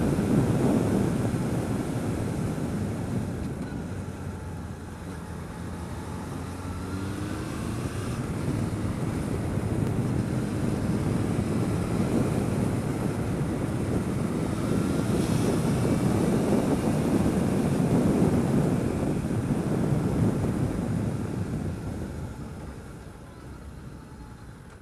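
Motorcycle on the move, heard from a helmet camera: a loud rush of wind buffeting over the microphone with the engine running underneath, its note rising for a moment about seven seconds in. The noise dies away over the last few seconds as the bike slows down.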